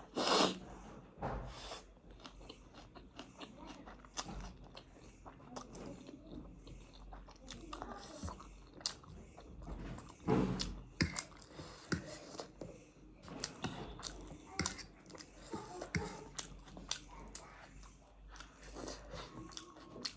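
Close-up eating sounds: a person chewing and biting pork and spicy instant noodles, with irregular wet clicks and crunches all through and louder bursts just after the start and about halfway.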